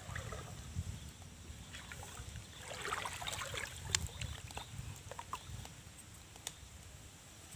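Shallow river water splashing and sloshing as hands work in it, picking fish out of a net, with scattered small clicks and knocks; busiest around the middle, over a low rumble.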